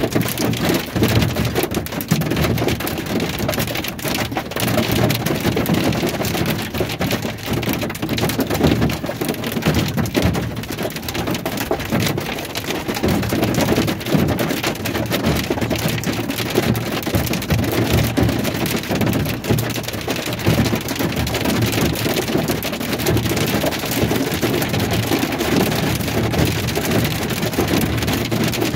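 Heavy rain beating on a pickup truck's cab and windows, heard from inside the cab: a dense, steady patter of drops.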